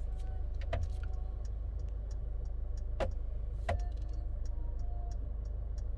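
Inside a Mercedes-Benz Vito van with the engine idling: a steady low hum, under an even, rapid series of light ticks like an indicator relay. A few louder single clicks come about a second in, at around three seconds and just before four seconds.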